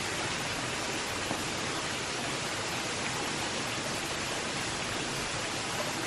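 Steady rush of water spilling over a low concrete dam into a waterfall, an even hiss that does not change, with two faint clicks.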